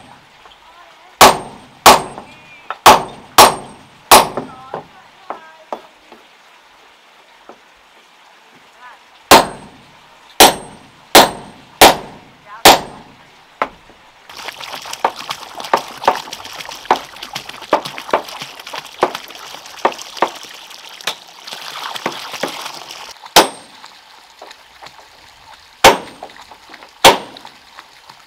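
Steel hammer driving nails into wooden boards: sharp metallic strikes with a brief ringing ping, in runs of four or five blows. In the middle there is a longer stretch of rustling with light clinks.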